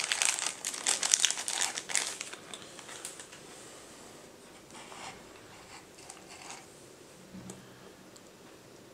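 Clear plastic bag crinkling as a small electronic module is pulled out of it. The crinkling is loud for about the first two seconds, then dies down to a few faint rustles.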